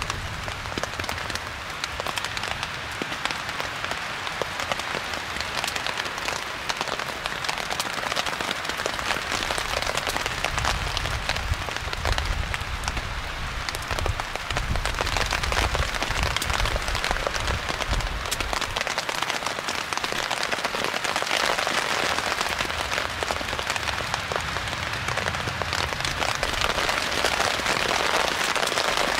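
Steady rain falling, heard as a continuous hiss with many separate drop hits.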